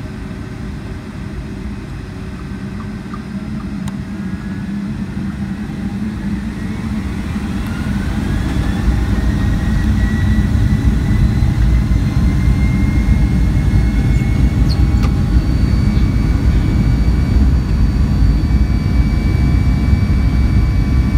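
Pratt & Whitney turbofan engines of a Boeing 757-200, heard inside the cabin beside the wing, spooling up for takeoff. A whine rises in pitch over a growing low rumble, the sound gets louder through the first half, and then it holds steady at full power.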